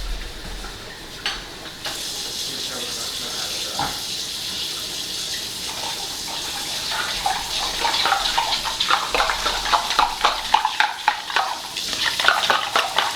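Water running, then a spoon stirring and clinking quickly against a container for the last several seconds, as a vegetable broth is made up.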